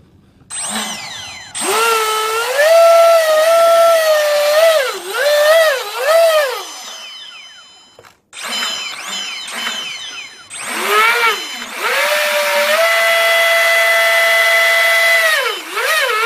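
RC boat's electric motor run up on the bench by the transmitter throttle, spinning the propeller shaft in air: a whine that rises in pitch, holds, wobbles up and down as the throttle is blipped, then falls away. This happens twice, with a short pause between runs.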